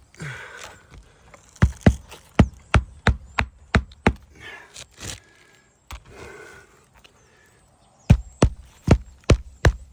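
Hammer driving roofing nails into a newly fitted asphalt 3-tab shingle: two runs of quick, even strikes, about three a second, with the rustle of the shingle being handled between them.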